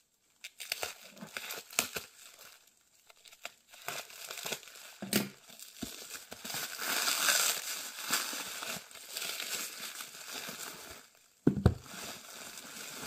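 Clear plastic wrap around a bundle of books crinkling and tearing as it is pulled off by hand, loudest in the middle. A couple of low thumps, about five seconds in and near the end.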